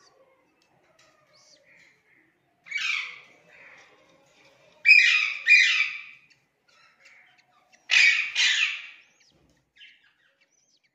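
Budgerigars calling: one scratchy call about three seconds in, then two quick pairs of calls a little later, each call about half a second long.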